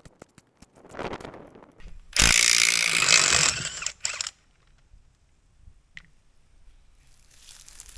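A handheld power tool runs in one loud burst of about two seconds, a couple of seconds in, working on bolts. Weaker scraping and knocking come before it, and there is a single sharp tick later on.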